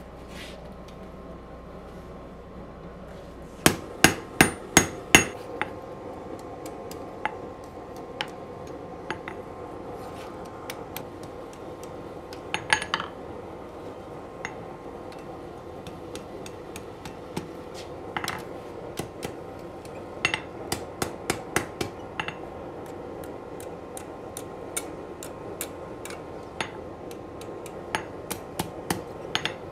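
Blacksmith's hand hammer striking red-hot steel, forging and looping the rat-tail tang of a Damascus knife: a quick run of about six loud blows about four seconds in, then scattered lighter strikes and short runs of blows.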